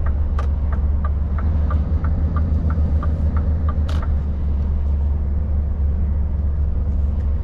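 Steady low drone of the Scania S770 V8 truck's engine and tyres heard inside the cab at motorway speed. The turn-signal relay ticks about three times a second through the first three and a half seconds, while the truck changes lanes to the left. A single sharp click comes about four seconds in.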